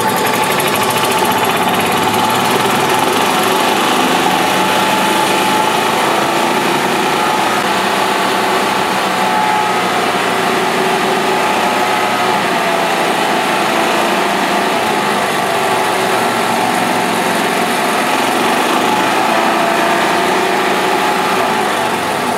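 Club Car DS golf cart's single-cylinder four-stroke gas engine running steadily under throttle, its pitch wavering only slightly. The governor is not holding the engine speed back, which the mechanic takes for a possibly damaged governor.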